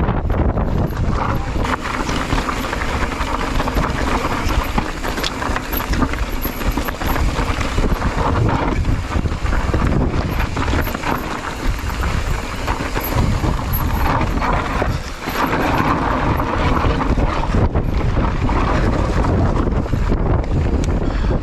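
Strong wind buffeting the microphone during a trail ride, a loud rushing rumble that keeps up throughout.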